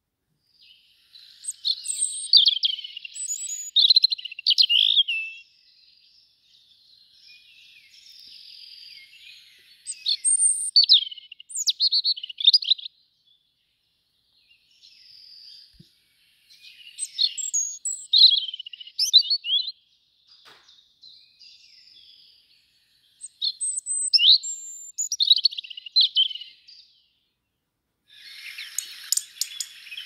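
A European robin singing: high, varied phrases of song, about four loud ones separated by short pauses, with softer warbling between them. A crackling hiss starts near the end.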